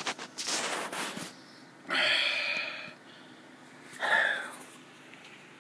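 A person's breath: two breathy puffs, a longer one about two seconds in and a shorter one about four seconds in, after some softer noise at the start. There are no keystrokes.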